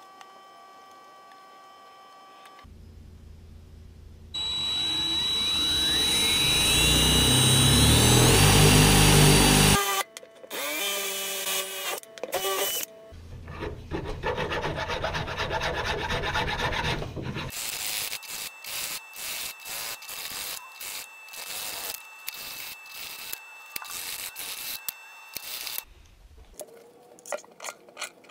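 Hand tool rubbing and rasping on a small wooden block, in even strokes about two a second. Before that comes a louder run of several seconds that grows louder with a rising whine and stops suddenly.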